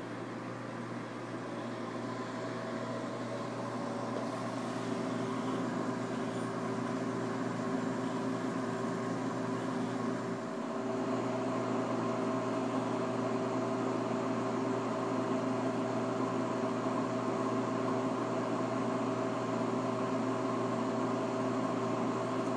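Steady hum of reef aquarium pumps and equipment, several fixed tones under an even hiss, a little louder from about halfway through.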